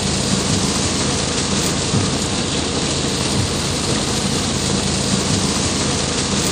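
Heavy tropical downpour falling on a car's roof and windshield, heard from inside the car as a loud, steady rain noise.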